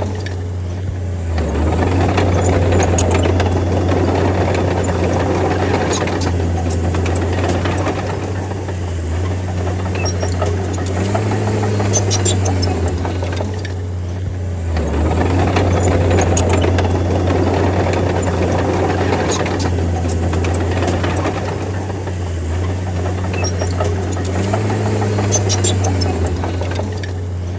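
Small crawler bulldozer's diesel engine running under load while pushing soil, its sound swelling and easing every several seconds. Occasional short clanks are heard over it.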